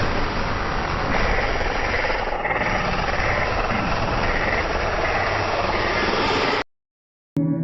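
Loud, steady, rough rumbling noise, engine-like in character, that cuts off abruptly near the end.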